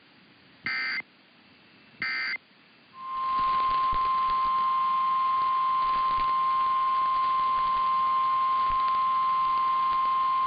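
Two short bursts of Emergency Alert System digital data, about a second and a half apart: the end-of-message code closing the test. About three seconds in, a steady single-pitch NOAA Weather Radio warning alarm tone starts over radio hiss and holds, announcing the tornado warning that follows.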